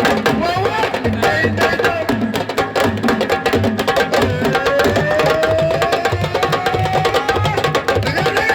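Fast, dense hand-drum percussion, many sharp strokes in a busy rhythm, with a long slowly rising note over it in the middle.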